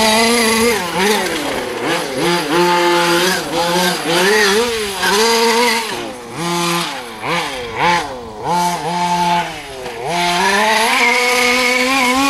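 Small two-stroke petrol engine of a 1/5-scale RC off-road buggy, revving up and falling back over and over under quick throttle changes, with short steady spells at high revs.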